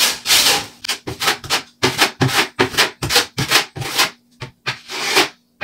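Wide steel drywall taping knife scraping across joint compound on a wall patch in quick repeated strokes, about three a second.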